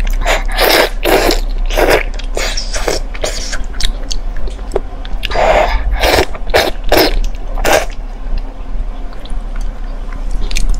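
Close-miked eating of soft braised meat: irregular wet bites, sucking and chewing mouth sounds, coming in clusters.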